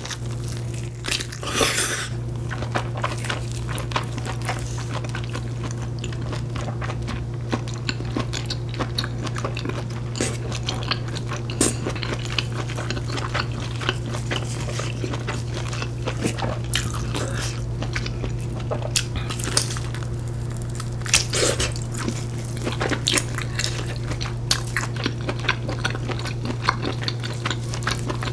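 Close-miked eating: biting into and chewing smoked pork, with many short wet smacks and crunchy clicks and a few louder bites. A steady low hum runs underneath.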